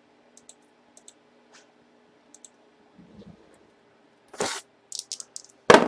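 Scattered light clicks and handling noises, then a short rush of noise and a loud sharp knock near the end.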